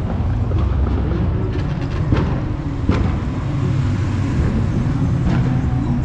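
Car engines running in street traffic, a steady low rumble, with a few short sharp sounds about two, three and five seconds in.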